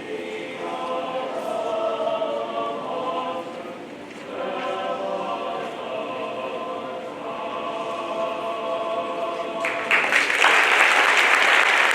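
High school chamber choir singing in harmony, holding long chords with a brief breath near the middle; the singing ends and loud applause breaks out suddenly near the end.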